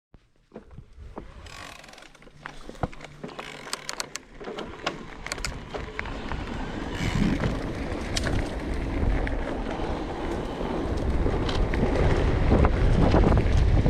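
Canyon Strive:ON CFR e-mountain bike rolling off down a trail, its frame rattling and clacking over the bumps, with tyre and wind noise growing louder as it picks up speed. The rattle is a fault the bike has had since new.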